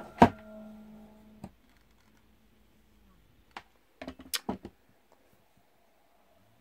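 Rhino Motion motorized camera slider's motor humming on speed 4, a noise the owner finds really loud and not normal, stopping about a second and a half in. Two sharp clicks at the start and a quick cluster of clicks about four seconds in.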